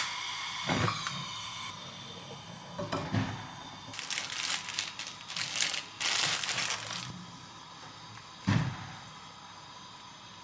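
A single click of a long-nosed utility lighter at the very start, then plastic packaging crinkling and tearing as a bundle of enoki mushrooms is unwrapped, with a thump on the wooden cutting board about eight seconds in.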